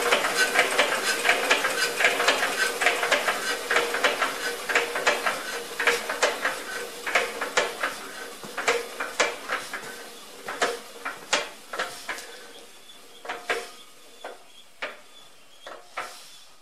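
Metro 6/1 Listeroid single-cylinder diesel engine coasting down after its fuel is shut off: a rapid metallic clatter that slows and fades, the knocks coming further and further apart until the engine stops near the end.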